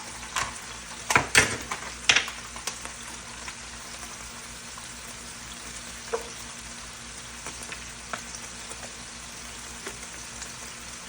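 Ground beef sizzling in ghee in a hot pan, a steady frying hiss. A utensil clicks and scrapes against the pan several times in the first few seconds, with a few lighter clicks later.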